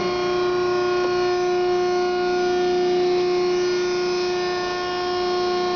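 Hydraulic pump of a 1993 Wysong PH100X96 100-ton CNC press brake running, giving a steady, unchanging whine.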